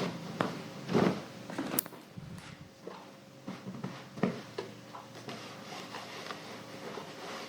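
Clothes iron sliding and rubbing over fabric, with cloth rustling and a few soft knocks, the loudest about a second in and again just past four seconds.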